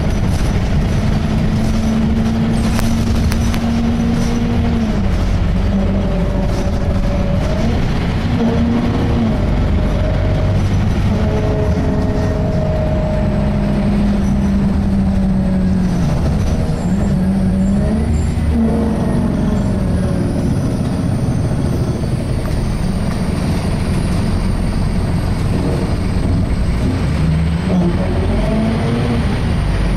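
Scania K230 single-deck bus driveline heard from on board while underway: a loud groaning tone that rises and falls in pitch as the bus speeds up and slows, over a steady engine and road rumble. The groan is a noise the owner says sounds awful, from an unknown fault.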